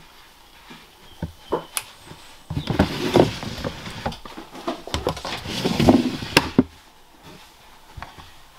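Plastic snake-rack tubs being handled: a few light knocks, then two spells of scraping and rustling.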